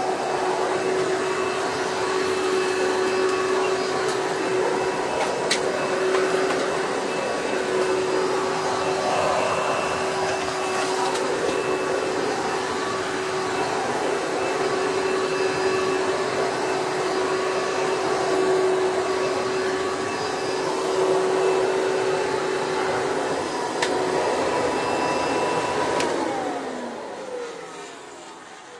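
Hoover bagless twin-chamber vacuum cleaner running at a steady hum. About 26 seconds in it is switched off with a click, and the motor winds down with a falling pitch.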